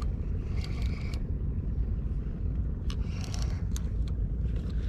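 Wind buffeting the microphone: a steady low rumble, with a few faint clicks and light rattles about a second in and again around three seconds in.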